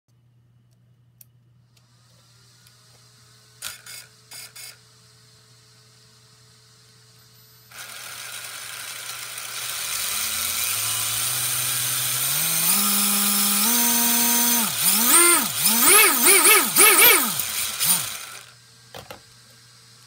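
Yokomo YD-2 RC drift car's motor and drivetrain run up with the wheels off the ground. Starting about eight seconds in, it spins up, its whine climbing in steps, then it is revved up and down in quick blips before stopping near the end, after a low hum and a few clicks earlier on.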